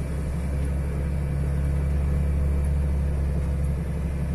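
Semi-truck's diesel engine running steadily at low revs in first gear, pulling a loaded trailer up a dirt slope.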